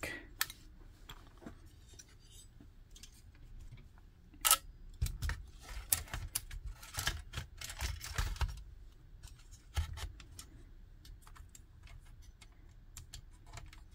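Handling noise of a router's circuit board and aluminium heatsink being fitted back into its plastic housing: scattered small clicks, taps and scrapes, with a sharp click about four seconds in and a cluster of knocks and dull thumps between about five and nine seconds.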